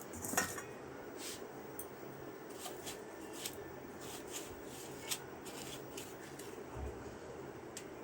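Faint, scattered clicks and light taps of a dish and utensil, with soft rustling, as an egg-dipped fish cutlet is pressed and turned in bread crumbs. The sharpest tap comes about half a second in.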